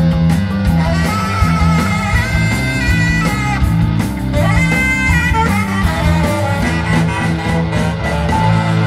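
Ska-punk band playing live: an instrumental passage with a guitar lead over a repeating bass line and drums. The bass and drums stop right at the end, closing the song.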